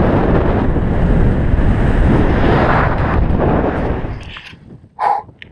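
Loud wind rushing over an action camera's microphone on a moving road bicycle, dying away about four seconds in.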